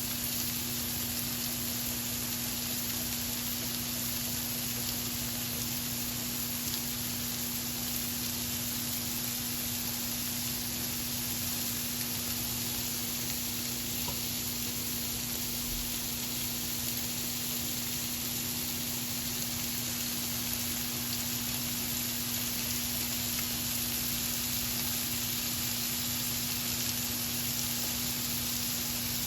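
Beef burger patties sizzling on a hot grill pan, a steady even hiss, with a low steady hum underneath.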